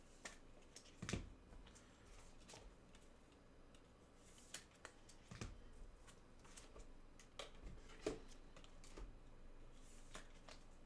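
Faint, scattered clicks and taps of small objects being handled on a desk, with louder knocks about a second in and about eight seconds in.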